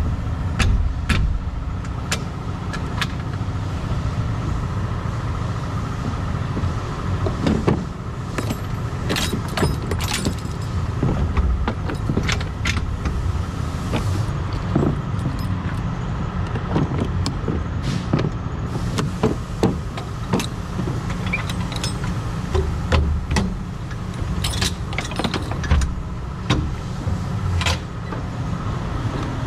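Truck engine idling steadily, with repeated metallic clinks, clanks and jangles of tow chains, hooks and trailer door lock bars being handled.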